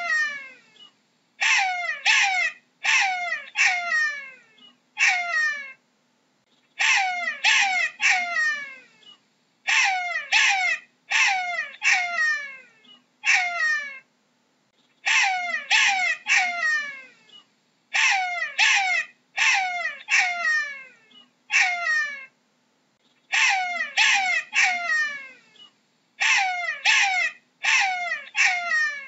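Jackal calling: a run of short, high yelps, each falling in pitch, given in quick groups of two to four with brief pauses between.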